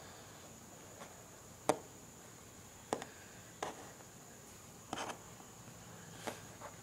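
Light, scattered taps of fingers and small polymer clay pieces against a tabletop, about six in all, the sharpest a little under two seconds in, over a faint steady high hiss.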